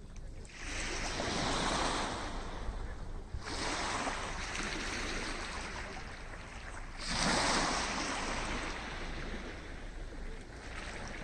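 Sea waves breaking and washing up on a beach, three surges of rushing surf that each swell up and slowly fade.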